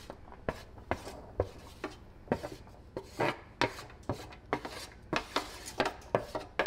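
A utensil scraping and tapping against a pot and bowl as cooked couscous is scooped out and transferred, in irregular strokes about two a second.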